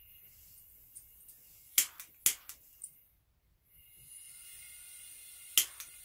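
A handheld click lighter sparking at a propane ring burner: a few sharp clicks about two seconds in and a couple more near the end, over a faint steady hiss of gas from the burner.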